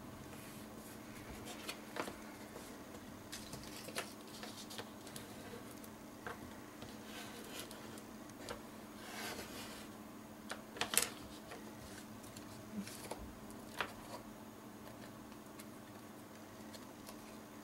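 Paper and card being handled and pressed down by hand on a craft mat: scattered light taps and brief rustles, over a faint steady hum.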